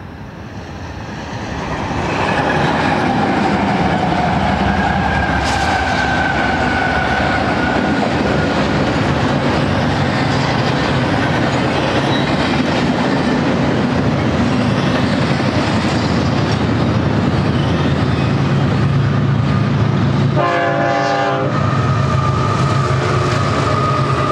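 BNSF double-stack intermodal freight train passing close: a steady rumble with wheel clatter. The horn sounds early on and falls slowly in pitch as the train goes by. A brief burst of pulsing tones comes about twenty seconds in.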